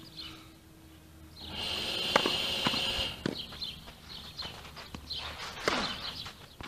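Tennis ball being struck: several sharp pops of a racket hitting the ball and the ball bouncing on the clay, spread over a few seconds. A hissing rush of noise swells up with the first hits, in the first half.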